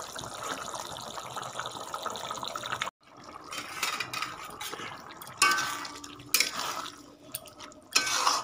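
Potato, potol and prawn curry bubbling as it simmers and reduces in a kadai. After a break about three seconds in, a spatula knocks and scrapes against the pan a few times.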